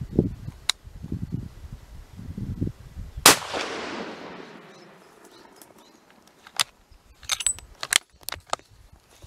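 A single hunting-rifle shot about three seconds in, its report rolling away across the canyon for a couple of seconds. Muffled low rumbling comes before it, and a few sharp clicks follow near the end.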